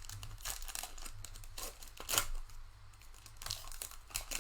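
Wrapper of a Panini Donruss football card pack crinkling and tearing in the hands as it is opened: a run of irregular crackles, the loudest about two seconds in.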